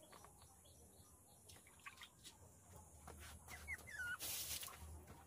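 Quiet yard ambience with faint clicks, then a few short, high, falling squeaks from a small animal about three and a half seconds in, followed by a brief burst of rustling noise.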